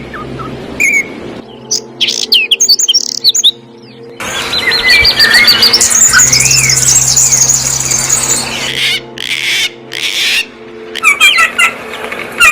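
Several wild birds chirping and calling in short spliced clips that start and stop abruptly. From about four seconds in there is a dense run of rapid, high chirps.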